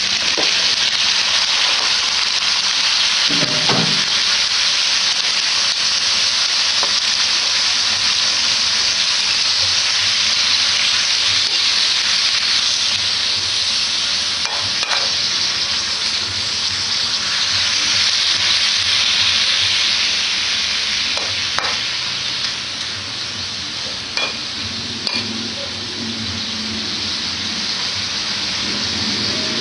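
Pork tongue pieces, garlic and marinade sizzling steadily as they fry in a wok, with a metal spatula stirring and knocking against the pan now and then.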